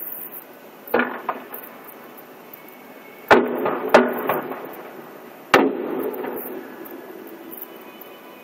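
Aerial firework shells bursting: four sharp booms, about a second in, twice close together past the three-second mark, and once more near the middle, each trailing off in a rolling echo.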